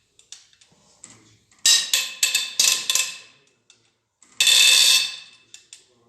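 Hand tools on the G4NA engine's cylinder head bolts: a quick run of sharp metallic clicks about two seconds in, then a longer metallic rattle of about half a second near the end.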